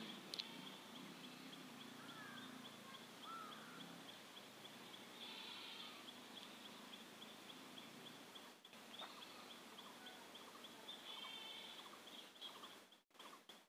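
Near silence: faint background ambience with a few faint bird-like chirps and a faint, regular ticking.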